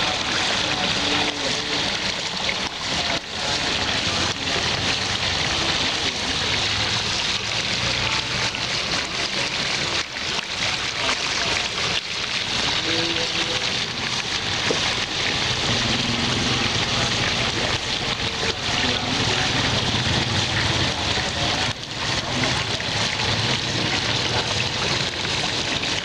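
Water from a handmade model waterfall pouring steadily over its ledge and splashing into the pool just below, a constant hissy rush.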